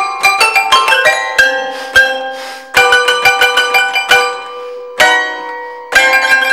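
Michelsonne wooden toy piano played with both hands, its hammers striking metal rods: quick runs of ringing notes. Twice, a little before halfway and about three-quarters through, the playing pauses and a note is left to die away before the next run starts.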